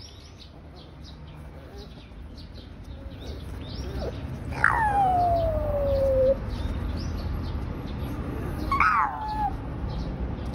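An animal's long, falling cry about halfway through, lasting under two seconds, then a shorter falling cry near the end, over a steady low rumble.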